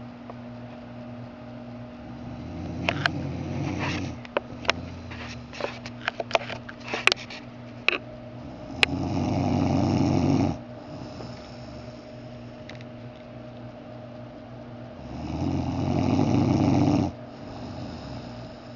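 A man snoring in his sleep: three snores, each about one and a half to two seconds long, roughly six seconds apart, with a run of short sharp clicks after the first.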